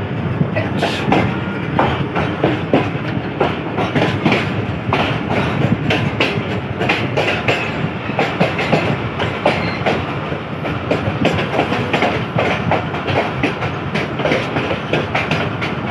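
Passenger train running on the track, its wheels clattering steadily over the rail joints with a continuous rolling rumble, heard from on board a coach as it nears the station.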